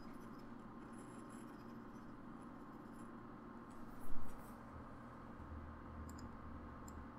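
Faint handling noises over a low room hum: a short scrape about four seconds in and a few light clicks near the end, as a Cold Steel wakizashi bokken is picked up and slid into a PVC-pipe scabbard to test its fit.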